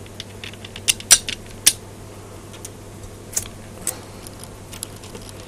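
Small steel bolts being turned by hand into the housing flange of an Emotator rotator: irregular metallic clicks and ticks as the threads catch and the bolt heads knock against the casing, the sharpest a little after one second and near two seconds in. A faint low steady hum lies underneath.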